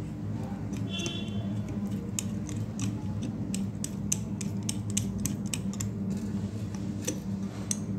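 Screwdriver driving the brass fixing screw of a basin mixer tap: a run of small, irregular metallic clicks and scrapes as the tip turns in the screw, with a brief squeak about a second in. A steady low hum runs underneath.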